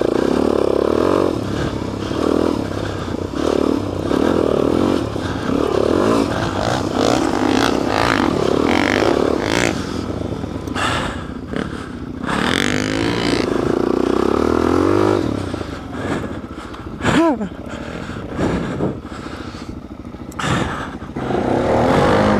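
Suzuki DR-Z400S single-cylinder four-stroke engine revving up and down over and over while riding through loose sand. There are knocks and rattles from the bike over bumps.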